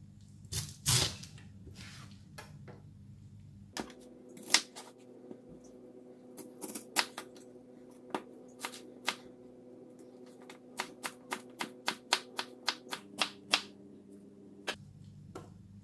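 Kitchen knife chopping pineapple on a plastic cutting board: scattered sharp knocks at first, then a fast run of about four chops a second in the second half as the fruit is diced.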